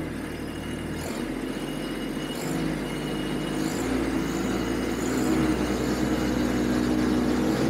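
Kubota LX2610 compact tractor's three-cylinder diesel engine running steadily, growing gradually louder.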